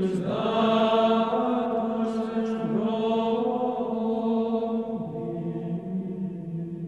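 Background music: voices singing slow chant in long held notes, growing quieter near the end.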